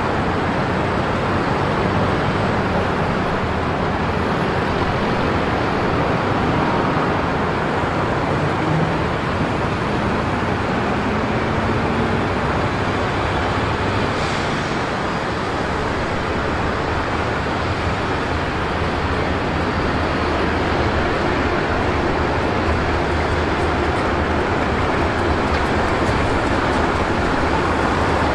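Steady traffic-like rumble, with the engine of an approaching SRT diesel-electric locomotive, no. 4538, growing a little louder in its low hum toward the end as it draws into the station.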